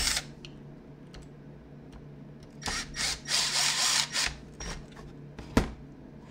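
Cordless drill-driver running in several short bursts, about two and a half seconds in, as it works a screw in the sander's metal housing. A single sharp knock follows a little over a second later.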